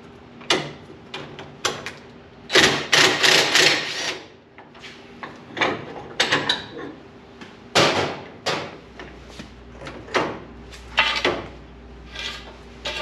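Tools and metal parts clanking and knocking against a steel rolling tool chest as its casters are unbolted, in separate sharp knocks with a dense rattling burst lasting over a second about two and a half seconds in.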